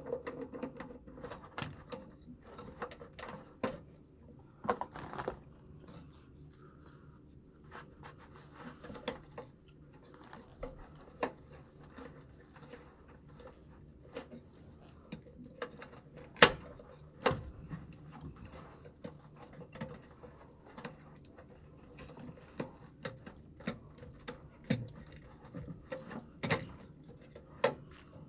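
Irregular clicks, taps and clinks of tools and small metal parts being handled, the loudest knock about halfway through, over a faint steady low hum.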